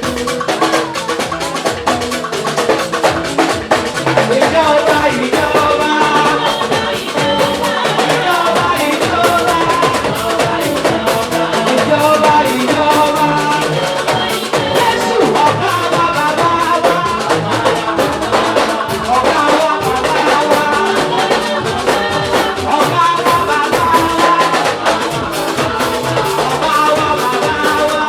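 Gospel praise band playing continuously, with a drum kit keeping the beat and singing over it.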